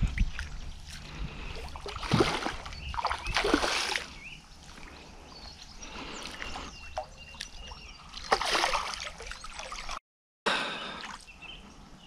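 Water splashing in three short bursts, two about a second apart and a third some five seconds later: a hooked tench thrashing at the surface as it is brought in.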